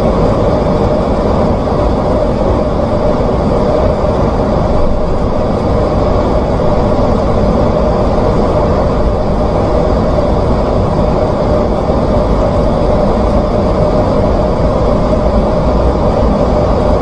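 Steady, loud rush of airflow and jet engine noise inside an airliner's cockpit on final approach.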